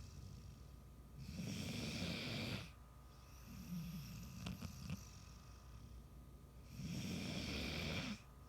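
Snoring in a slow rhythm: two long, loud rasping snores about five and a half seconds apart, with a quieter, lower rumbling breath between them.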